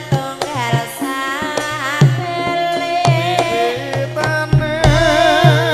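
Live Javanese gamelan-style band music: regular kendang hand-drum strokes under a wavering sung melody.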